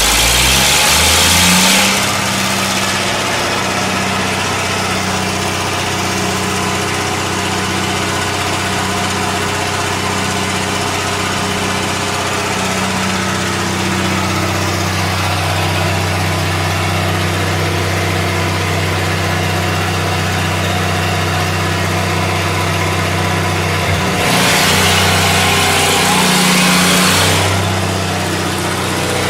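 Kobelco 60 hp oil-free rotary screw air compressor running with its generator, a steady low machine hum. A loud hiss rises over it in the first two seconds and again for about three seconds near the end.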